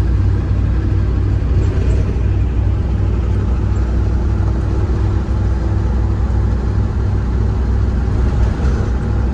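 Intercity bus travelling on the road: a steady low rumble of engine and road noise.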